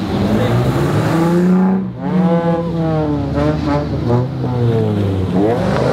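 Cars driving past one after another, their engines accelerating. The engine notes climb, drop off briefly about two seconds in, then rise and fall again.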